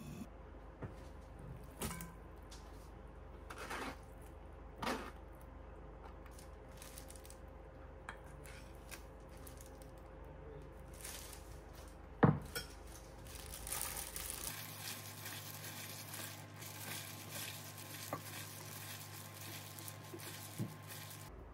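Kitchen handling sounds: scattered clinks and knocks of utensils against a stainless steel mixing bowl, with one sharp knock about twelve seconds in, and soft sounds of cooked noodles being tossed with a thick sauce in the bowl.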